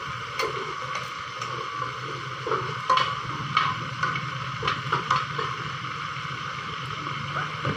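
Chicken feet sizzling in a lidded frying pan over a portable butane gas stove, a steady hiss with a low hum beneath it. Several light metal clinks of the lid and a spoon, the loudest about three seconds in and a cluster around four to five seconds.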